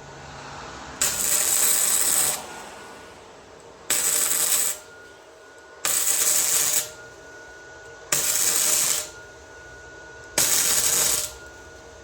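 MIG welder arcing in five short runs of about a second each, tacking a pie-cut section into a turbo pipe.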